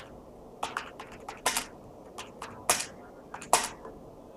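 Typing on a computer keyboard: about a dozen unevenly spaced key clicks as a file name is typed.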